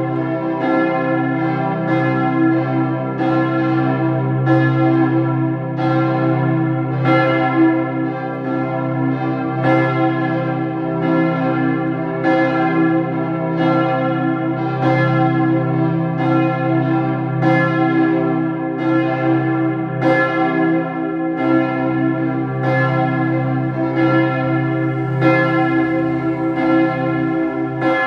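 Church bells of the Martin-Luther-Kirche ringing in a continuous peal, strokes coming about once a second, each ringing on under the next.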